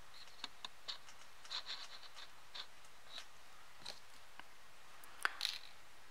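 Faint scratching and rustling of hands handling crocheted acrylic yarn, with scattered small ticks and taps and a sharper tick about five seconds in.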